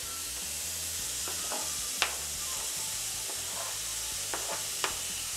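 Diced eggplant and carrot sizzling steadily in oil in a hot wok, with a few sharp taps as a knife scrapes chopped parsley off a cutting board into the pan, the loudest about two seconds in.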